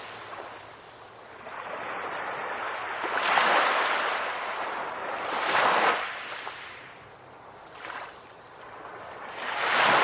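Ocean surf washing onto a beach: several waves break in turn, each a swelling rush of water that then falls away, with a softer one about eight seconds in and another building near the end.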